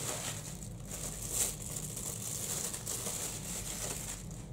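Packaging crinkling and rustling as it is handled, with a louder crackle about one and a half seconds in.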